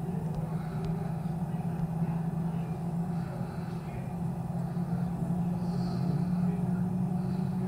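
Steady low background hum, unchanging throughout.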